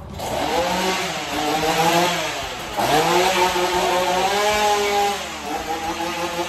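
Chainsaw revved hard again and again, its engine note climbing and dropping in pitch, with a short dip about three seconds in.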